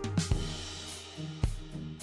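Background music with a drum kit: bass drum and snare hits over a bass line, with a cymbal crash near the start.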